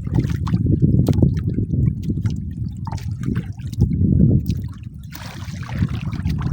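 Water splashing and lapping against a small boat's hull, with a low uneven rumble and scattered knocks. It eases about five seconds in, where a softer hiss is left.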